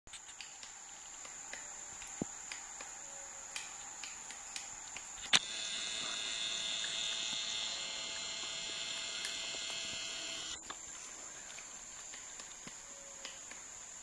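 Tropical forest insects: a steady high-pitched insect drone throughout, with a louder dense buzzing insect chorus from about five seconds in that cuts off suddenly near the eleventh second. Scattered faint ticks and one sharp click just before the buzzing starts.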